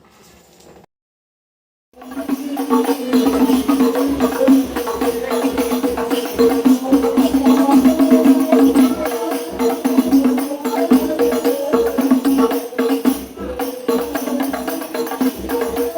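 Background music with a steady beat and percussion, starting about two seconds in after a brief silence.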